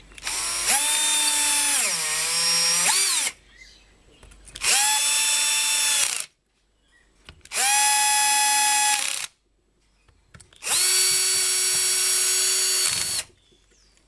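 Bosch drill-driver running in four short bursts, driving in the four bolts that hold a water pump's new plastic housing. In the first, longest run the motor's whine dips in pitch as the bolt loads it up.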